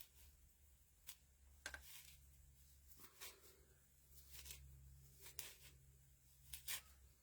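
Faint scattered rustles and small clicks, about six over several seconds, from hands working coco-fibre liner material into a nest, over a low steady hum.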